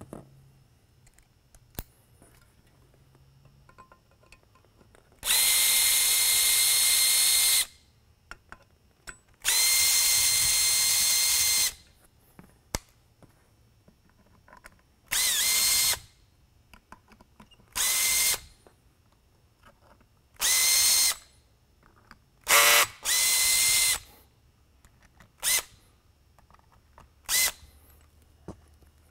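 Cordless electric screwdriver backing out the bolts that hold an LED spotlight's optic to its cast housing. It runs in about nine separate bursts of a steady whine: two of about two seconds, then shorter ones under a second, one dipping briefly in pitch as it takes up load. There are small clicks between the runs.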